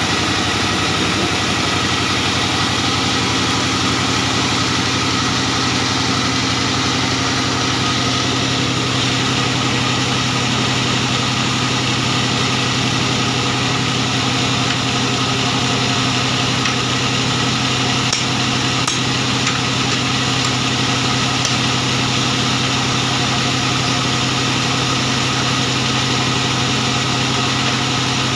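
Diesel engine driving a sawmill band saw, running steadily with a constant drone; a couple of faint clicks about two-thirds of the way through.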